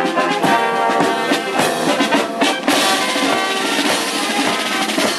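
Military marching band playing a march on trombones and trumpets over a snare drum beat.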